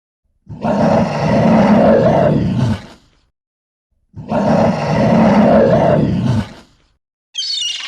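A large animal roaring: two long, low roars of the same shape, about a second apart, followed near the end by a short, higher-pitched call that is cut off.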